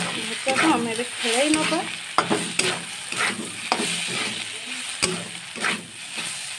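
A flat metal spatula scrapes and knocks against a kadai, stir-frying shredded potato and egg in oil, with a steady sizzle underneath. The scrapes and knocks come repeatedly, one or two a second.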